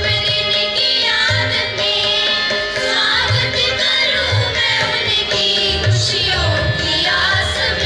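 Girls' chorus singing a Hindi welcome song (swagat geet) in unison, over a steady drum accompaniment.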